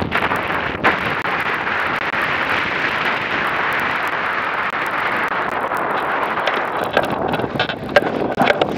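Steady rush of water along the hull of an A-class catamaran sailing upwind, mixed with wind buffeting the boat-mounted camera's microphone. There is a sharp knock about a second in, then a run of knocks and rattles over the last two seconds as the boat turns through a tack.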